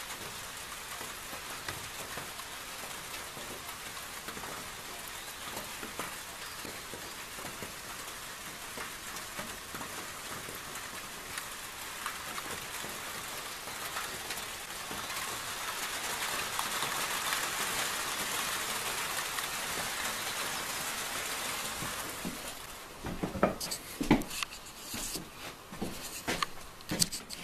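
Steady rain falling. It grows a little heavier past the middle, and about 23 seconds in it gives way to a run of sharp, irregular knocks and rubbing.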